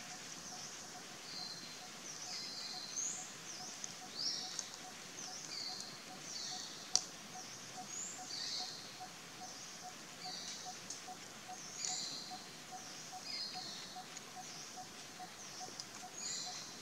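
Birds chirping over and over in forest ambience, short high falling calls about once a second. A faint steady ticking runs underneath at about three a second, and one sharp click comes about seven seconds in.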